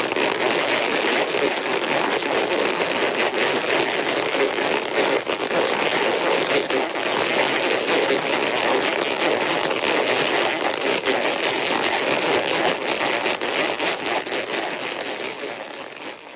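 Monster-film sound effect: a long, steady rushing, crackling noise with no pitch, starting abruptly and fading out near the end.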